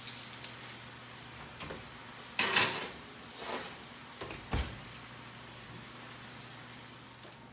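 An oven door being opened, a foil-lined baking sheet of poblano peppers slid onto the metal oven rack with a scrape, then the oven door shut with a low thump about halfway through.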